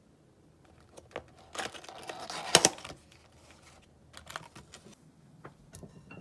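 A small paperboard box being handled and its top flap pulled open: a run of crisp clicks and papery rustles, loudest about two and a half seconds in, followed by a few scattered taps.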